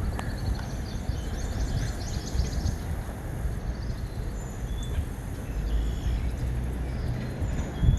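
Small birds calling over a steady low rumble: a quick run of repeated high notes in the first few seconds, then scattered short high chirps.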